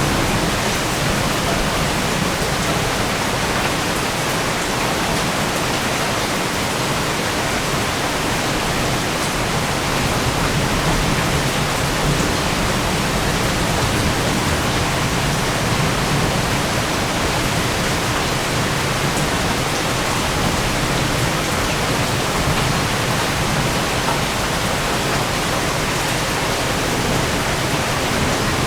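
Rain pouring down steadily in a severe thunderstorm, an even unbroken wash with no thunder or siren in it.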